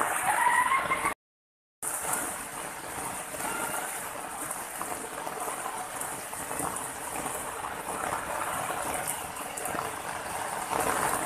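Water running steadily over rocks, with the sound cutting out completely for about half a second roughly a second in.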